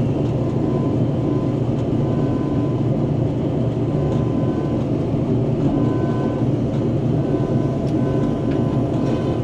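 A John Deere combine harvester running steadily while harvesting, its engine and threshing machinery heard as a constant hum from inside the cab, with a faint high tone that comes and goes.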